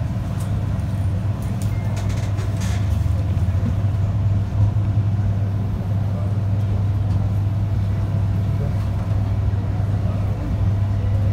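Low, steady rumble and hum of an MTR subway train, heard from inside the carriage.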